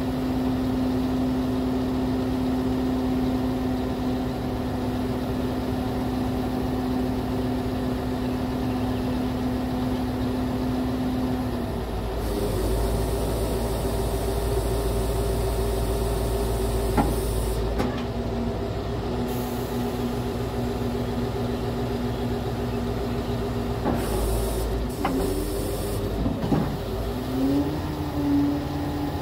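Scania R580's V8 diesel running while the JOAB hook-lift hydraulics work the hook arm back and down. The steady hum shifts in pitch and tone about twelve seconds in and again near the end as the hydraulic load changes, with a few sharp clicks and knocks from the moving arm.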